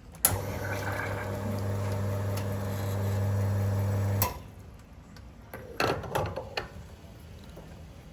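Coffee machine humming steadily for about four seconds, starting and stopping with a click, followed by a few quick clattering knocks.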